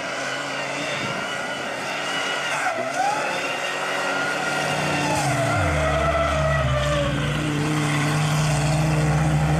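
Mud drag race vehicle engines running hard, their pitch rising and falling. From about five seconds in, a deep, steady engine note takes over.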